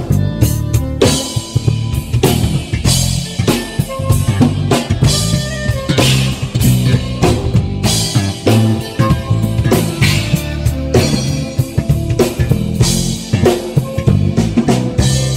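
Live band playing at a soundcheck: a drum kit with bass drum and snare hits in a steady beat under a moving electric bass line.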